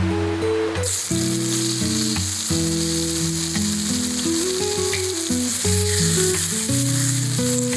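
Food frying in a pan over a campfire: a steady sizzle that sets in about a second in. It plays under background guitar music.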